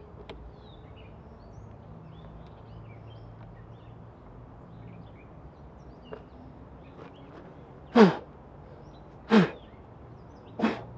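Birds chirping in the background, with three loud knocks about a second and a half apart near the end.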